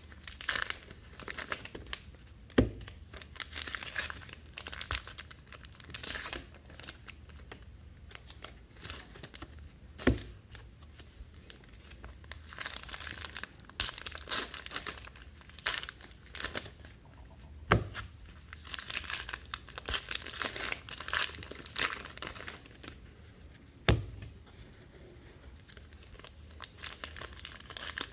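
2019 Allen & Ginter baseball card packs being torn open by hand, their foil wrappers crinkling in repeated bursts. Four sharp taps come about seven seconds apart.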